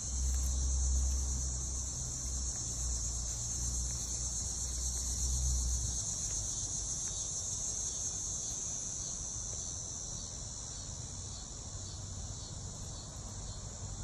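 Steady, high-pitched chorus of insects. A low rumble runs underneath for the first six seconds or so, then stops.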